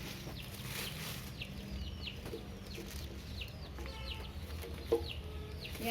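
Birds chirping: short high notes that fall in pitch, repeating two or three times a second, over a faint steady hum.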